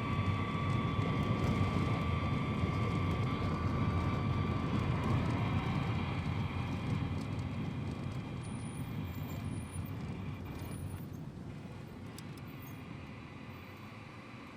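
Steady, low, engine-like rumble with a high whine that stops about five seconds in; the whole sound slowly fades out.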